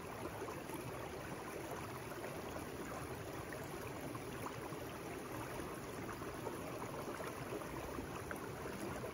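Beehunter Creek, a small woodland stream, running: a steady rush of flowing water.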